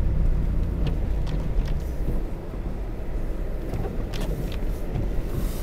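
Car engine and tyres working through deep snow as the car drives up a snow-covered driveway: a steady low rumble with a few short crunches or clicks along the way.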